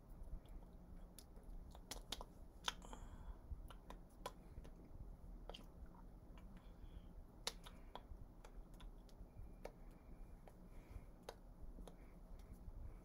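Near silence broken by scattered soft clicks and taps, irregularly spaced: hands and fingers meeting and brushing while signing in sign language, over a faint low room hum.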